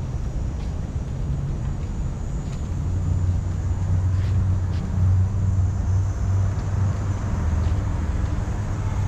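Road traffic rumble, with a vehicle engine's low drone growing louder about three seconds in.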